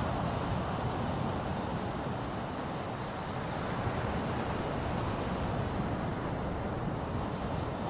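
Ocean surf: a steady rushing wash of waves, swelling and easing slightly in loudness.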